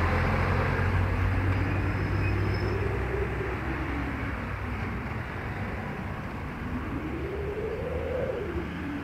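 Street traffic: a steady rumble of vehicle engines. Twice, an engine note rises and falls in pitch, once about two to four seconds in and again near the end.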